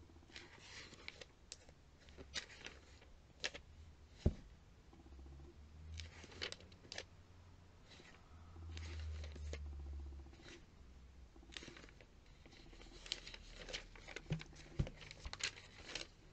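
Pages of a glossy paper catalogue being flipped quickly by hand: faint, irregular paper flicks and rustles, coming thicker near the end.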